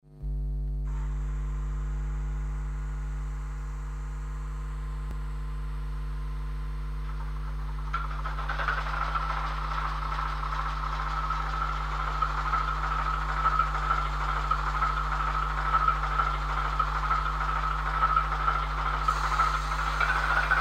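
Sound from a Roco model locomotive with its shell off and its decoder boards exposed. A steady hum starts at once. About eight seconds in, a louder, rougher rushing engine-like sound joins it and keeps going.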